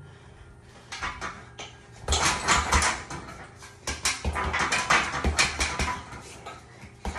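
Gloved punches landing on a hanging heavy punching bag in quick flurries, starting about a second in, with the bag's chains rattling.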